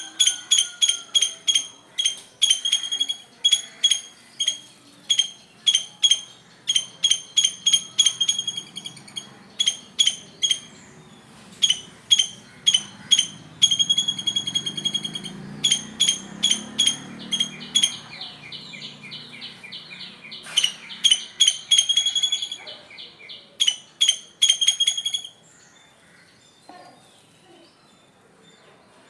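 A squirrel calling: short, sharp chirps on one high pitch, repeated in quick runs of several a second, which stop about 25 seconds in.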